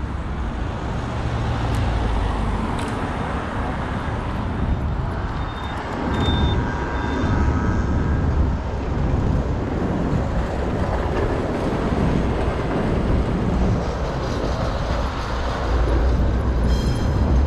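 City street traffic (cars and trams) heard from a moving bicycle, with an uneven low rumble throughout. Three short high beeps sound about five to seven seconds in, and a brief high ringing tone comes near the end.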